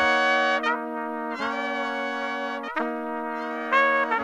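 Music: sustained notes, changing every second or so, over a steady low held tone.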